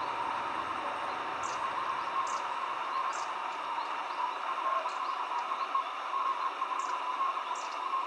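Shallow mountain stream trickling steadily over stones, with long-tailed tits giving short, very high, thin calls, six in all, spaced through the sound.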